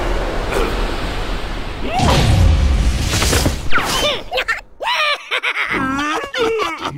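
Cartoon sound effects: a noisy rush with a low thud about two seconds in, then wordless cartoon-character vocalizations that slide up and down in pitch through the second half.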